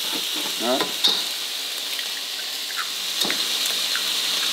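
Food sizzling steadily as it fries in a wok, with a utensil stirring and clicking against the pan now and then.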